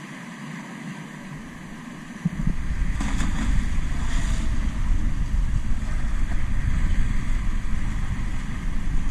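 Wind rumbling on the microphone with the road noise of a moving vehicle; the low rumble comes in abruptly and loud about two seconds in and stays steady.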